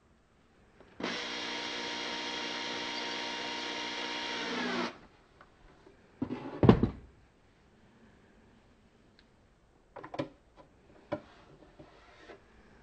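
Cordless drill/driver running steadily for about four seconds, driving a screw to fasten the bench grinder's base back onto the motor, then stopping abruptly. About two seconds later comes a single loud knock, then a few light clicks and knocks of parts being handled.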